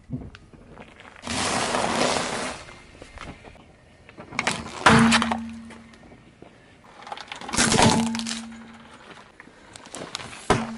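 Car tyre crushing a series of objects one after another: a crunch of dry sandwich biscuits lasting about a second, then separate sharp cracks and breaking a few seconds apart, among them a liquid-filled glass light bulb shattering.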